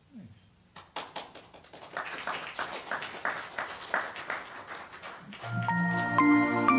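A congregation applauding, starting about a second in and growing into steady, dense clapping. Near the end the clapping gives way to an outro jingle of chimes over sustained tones.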